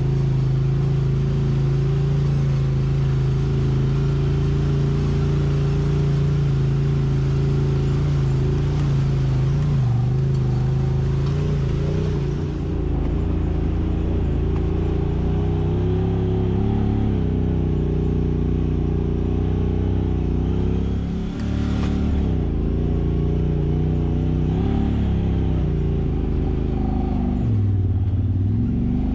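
Side-by-side UTV engine running steadily while riding a trail, its note rising and falling several times with the throttle.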